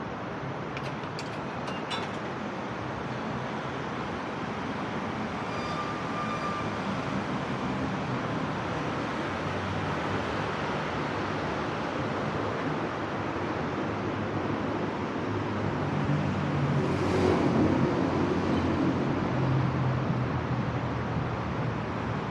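Steady road traffic rumble, with a vehicle passing louder and closer about three quarters of the way through.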